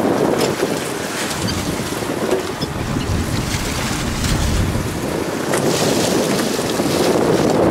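Steady wind buffeting the microphone and sea washing around a small fishing boat, with occasional light clicks.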